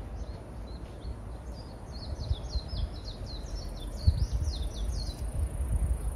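A small songbird singing a fast run of short, down-slurred whistled notes for about three and a half seconds, starting a second and a half in. Underneath is a low, gusting rumble of wind on the microphone, loudest about four seconds in.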